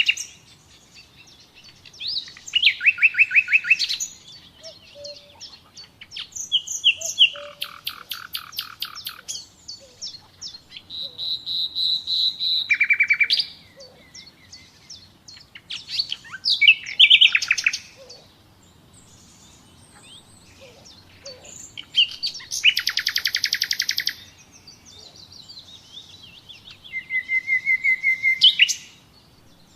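Common nightingale singing in separate phrases of a second or three each, most of them fast trills of rapidly repeated notes, with short pauses between phrases.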